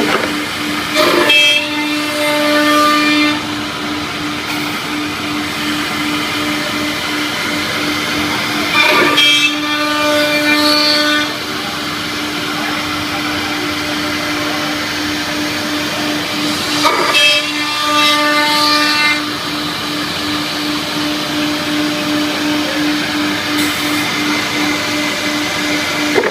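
CNC drilling machine running with a steady hum. Three times, about every eight seconds, a louder whine with several tones rises for two to three seconds, a repeating work cycle.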